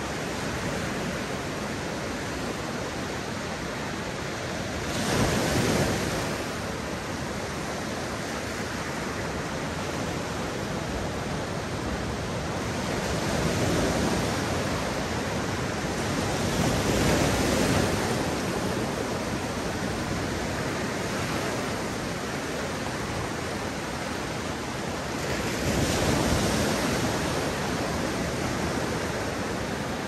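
Mediterranean sea surf on a beach: waves breaking and washing in over a constant rushing hiss, swelling louder four times as bigger waves break.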